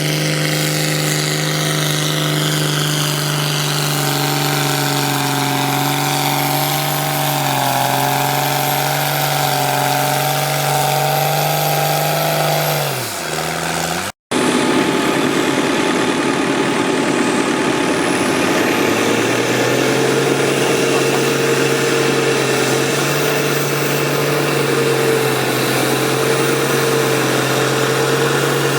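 Pulling tractor engine running hard at steady high revs, then winding down quickly a little before halfway. After an abrupt cut, another tractor engine runs steadily at high revs, its pitch stepping up slightly a few seconds later.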